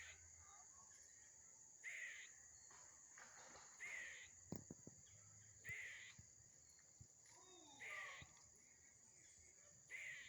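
Squirrel calling: a short call repeated about every two seconds, five times.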